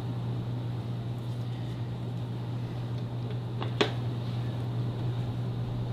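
Steady low hum in the room, with a few light clicks and one sharp click about four seconds in as a short sword is handled against its scabbard.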